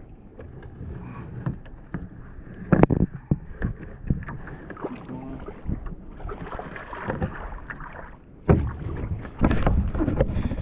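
Kayak paddling: a double-bladed paddle splashing in the water and knocking against the plastic hull, with water lapping at the boat. The splashing grows louder and busier about two-thirds of the way through.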